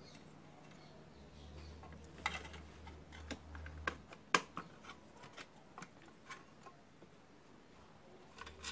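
Scattered small clicks and light knocks as wires and the sheet-metal case of an opened battery charger are handled, with a short cluster of clicks near the end.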